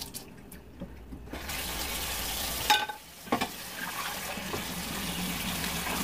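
Kitchen tap water running into the sink during hand dishwashing. The flow breaks off briefly twice, near the start and about three seconds in, and a dish clinks with a short ring just before the second break.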